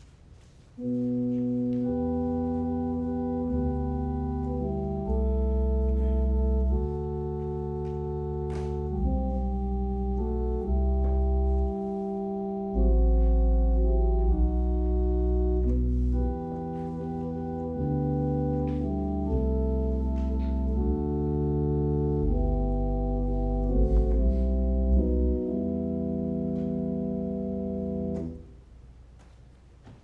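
Organ playing a slow series of sustained chords over a deep pedal bass, the chords changing every second or two. It starts about a second in and stops abruptly near the end.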